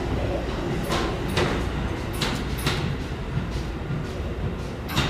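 Electric commuter train pulling out of the station: a steady low rumble with sharp wheel clicks in pairs about half a second apart as the wheels pass over rail joints.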